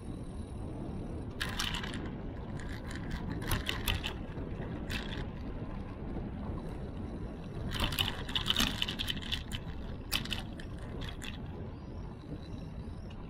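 Steady low rumble of wind and road noise on a bicycle-mounted action camera while riding, broken several times by short bursts of clattering rattles as the bike goes over bumps.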